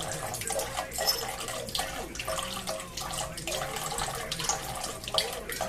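Water running steadily from a spigot, broken by many small, uneven splashes as the stream is disturbed.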